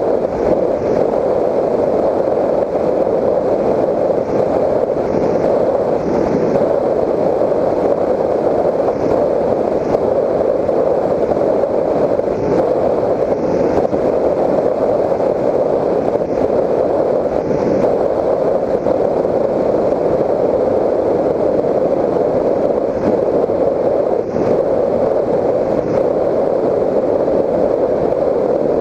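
Steady, muffled in-flight noise of a Raptor 1600 electric FPV plane, picked up by its onboard camera: a constant rush of propeller and airflow with no change in pitch.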